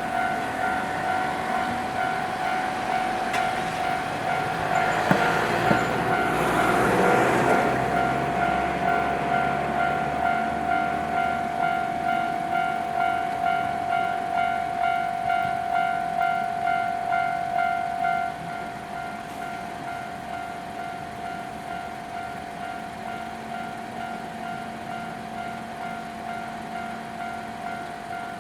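Railway level-crossing warning bell ringing in a steady, rhythmic repeating tone. A train passes over the crossing between about 3 and 8 seconds in, its wheels and running noise rising over the bell with a couple of sharp clicks. About 18 seconds in the bell gets quieter but keeps ringing.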